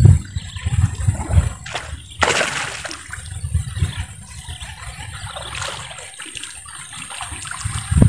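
Wind buffeting the microphone in gusts, over light splashing of water as a lure is retrieved across a pond's surface, with a brief rush of hiss about two seconds in.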